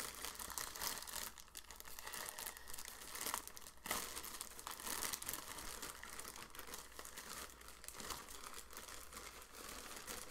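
Shopping bag crinkling and rustling as it is opened and the clothes inside are handled, with a few sharper crackles along the way.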